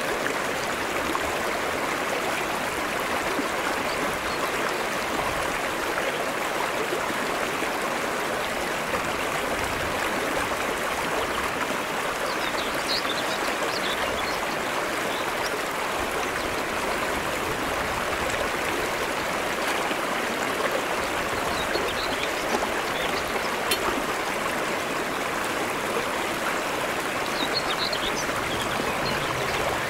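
Shallow stream flowing over flat rock slabs: a steady, even rush of running water.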